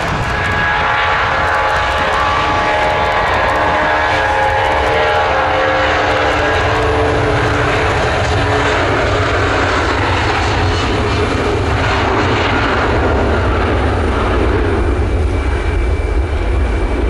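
Boeing 757's jet engines at takeoff power as the airliner accelerates down the runway: whining tones over a roar for the first seven seconds or so, then a steady broad roar.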